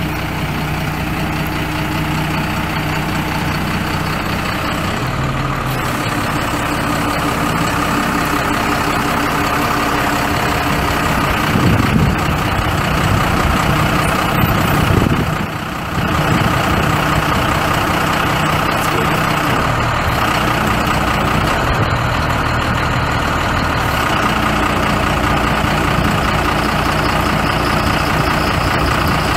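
Cummins 5.9-litre inline-six turbo diesel of a 1995 Ford F800 truck idling steadily, with a brief dip in level about fifteen seconds in.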